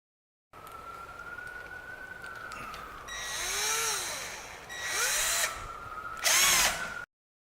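Power drill driving screws to fasten a door latch. The motor whines at a steady pitch, then its pitch sags and recovers under load in three louder spurts, the last near the end.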